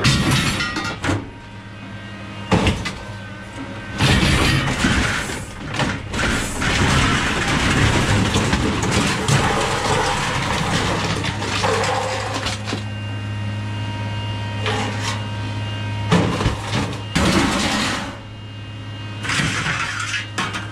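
Scrap metal clattering and banging as it is unloaded from a van, with many sharp knocks over a steady engine hum.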